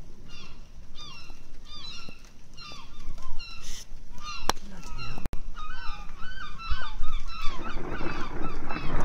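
A flock of birds calling, many short calls overlapping at several a second. A sharp click comes about four and a half seconds in, and a rushing hiss rises near the end.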